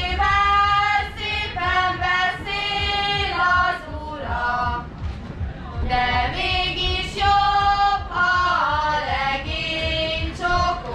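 A group of girls singing a Hungarian folk song together in one melodic line, in long held notes that glide between pitches.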